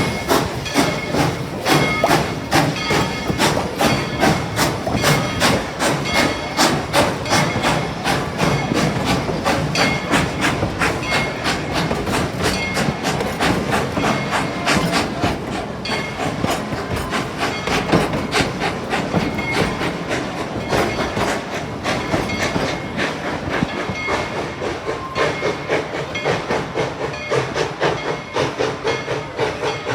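Tweetsie Railroad No. 190, a narrow-gauge 2-8-2 Mikado steam locomotive, chuffing in a steady rhythm of exhaust beats over a bed of steam hiss.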